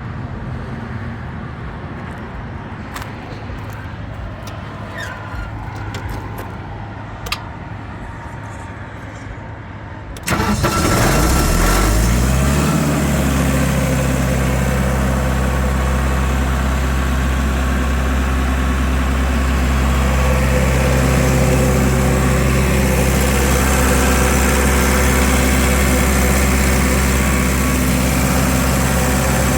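The John Deere 4024T four-cylinder turbo diesel of a Sullair 185 rotary-screw air compressor starts suddenly about a third of the way in, its speed rising for a couple of seconds before it settles into steady running. Before it starts there is only a low background hum with a few faint clicks.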